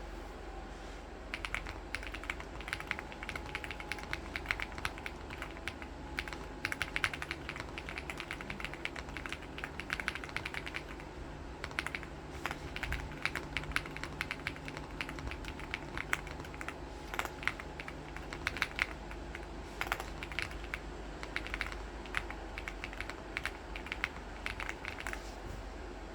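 Feker Galaxy80 mechanical keyboard with stock white marble switches and stock keycaps, typed on in fast runs of clacking keystrokes, with a short lull about eleven seconds in. The typing stops just before the end.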